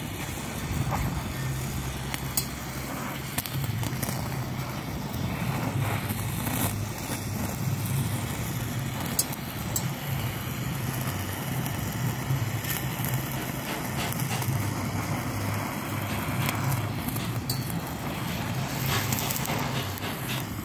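Gas brazing torch flame heating carbide tips on a steel earth auger blade for brass brazing: a steady rushing hiss with scattered small crackles and clicks. A low steady hum runs underneath.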